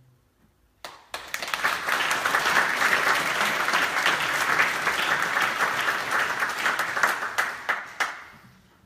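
The last note of the song dies away, then an audience breaks into applause about a second in, clapping steadily before fading out near the end.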